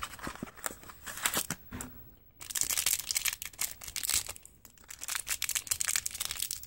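Cardboard blind box and its packaging being torn open and handled: a run of rustling, crinkling crackles, with a brief pause a little after two seconds in and then a louder burst of crinkling.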